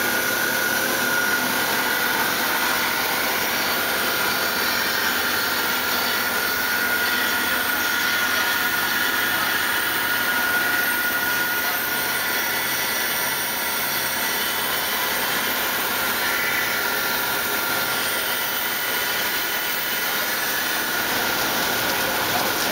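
Ikegai NB130P CNC horizontal boring mill running. It makes a steady high whine over a broad rushing hiss.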